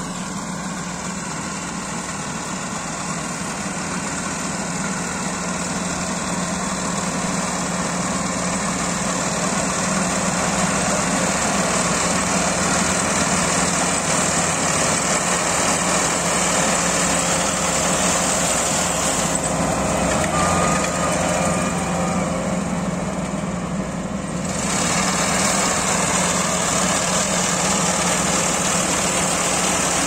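Kubota AR90 combine harvester's diesel engine and threshing machinery running steadily as it cuts rice: a constant low hum under a broad mechanical hiss, growing gradually louder. About twenty seconds in, the hiss dulls for some five seconds, then returns.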